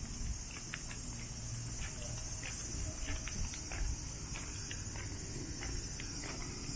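Cicadas droning steadily in a high-pitched, unbroken buzz, with faint scattered clicks and a low rumble underneath.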